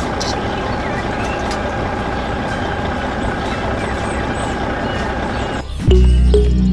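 Tractor engine running steadily. Near the end it cuts off abruptly, and loud music with a deep bass and short plucked notes takes over.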